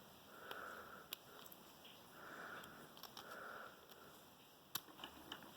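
Soft nasal breathing close to the microphone, a few slow breaths, with a few faint light clicks of small metal lock parts and tools being handled, the sharpest near the end.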